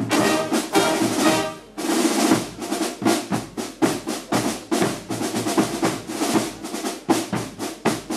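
Schutterij band of brass and drums: the brass and drums finish a phrase that breaks off a little under two seconds in, then the snare drums and bass drum carry on alone with a rapid drum cadence.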